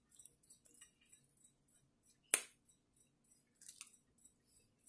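Quiet sounds of a person eating steak by hand at a plate: one sharp click about two seconds in, then a short rustle a little over a second later.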